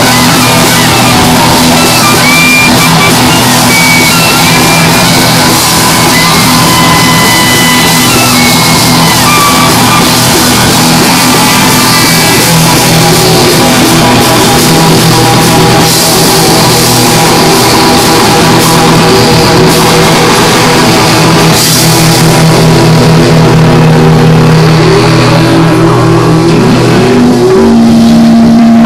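Live rock band playing loud, with electric guitar, drum kit and saxophone.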